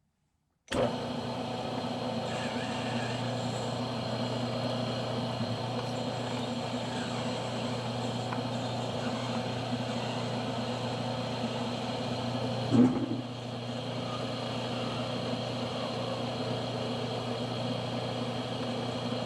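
Smithy combination lathe-mill switched on under a second in and running steadily with a low hum, the spindle turning the workpiece. A single short knock comes about two-thirds of the way through.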